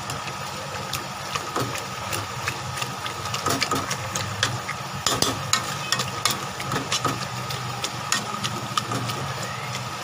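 A metal spoon stirring and scraping mashed turnips as they bubble in an aluminium pressure cooker, giving many sharp clicks and scrapes over a steady low hum.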